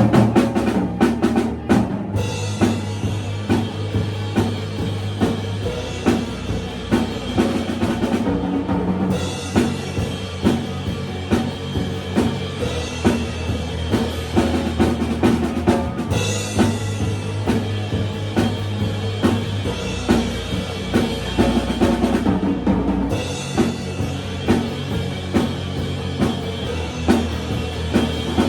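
A live band plays a song in a run-through: a drum kit keeps a steady beat under held low notes and other instruments.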